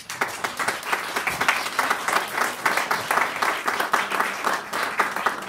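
Applause: a group of people clapping their hands, starting at once and beginning to thin out near the end.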